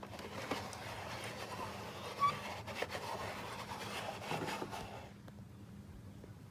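Plastic toys being handled: light rubbing and scattered small clicks for about five seconds, then it quietens.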